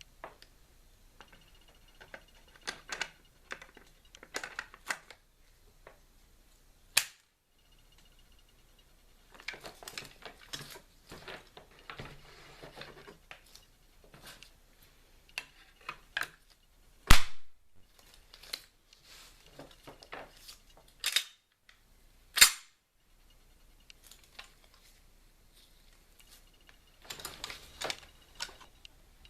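Ruger Mini-14 rifle being handled: a string of sharp metallic clicks and clacks with rattling between them, the loudest about seventeen seconds in and others near seven, twenty-one and twenty-two seconds.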